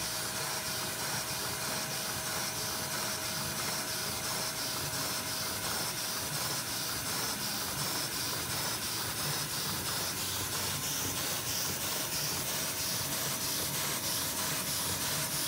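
LEGO model steam engine running on vacuum suction through a hose: a steady rushing hiss of air drawn through the engine, with a faint steady whine.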